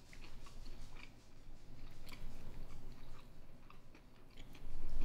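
Close chewing of grilled chicken, with irregular small clicks of forks on plates, over a steady low hum. A low bump rises near the end.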